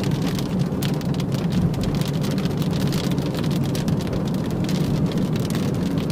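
Rain pattering on a moving car's roof and windshield, many quick drop taps, heard inside the cabin over the steady hum of the engine and tyres on the wet road.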